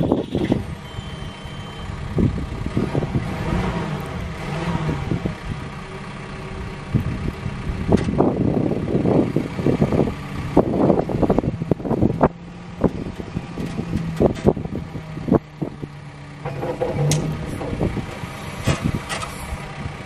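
Cat 420F backhoe loader's diesel engine running, with a single short electronic beep about a second in. In the second half the loader arm is raised on the hydraulics, under scattered knocks and clunks.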